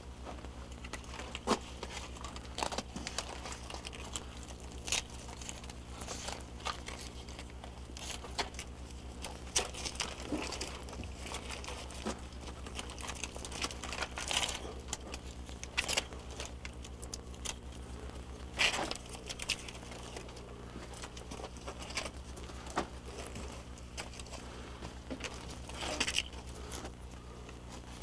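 Scattered crackles, clicks and rustling, irregular and spread throughout, over a steady low electrical hum.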